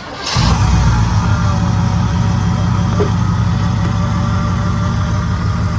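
1979 Chevrolet Camaro's engine starting up, catching almost at once and settling into a steady idle.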